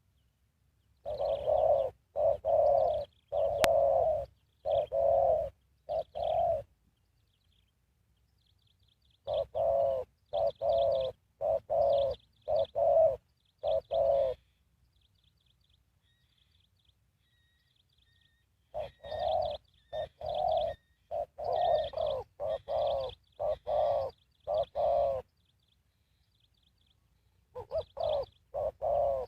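Spotted dove cooing: three bouts of about six or seven low, even coos each, with quiet gaps between them and a fourth bout starting near the end. Faint high chirps of small birds sound in the gaps.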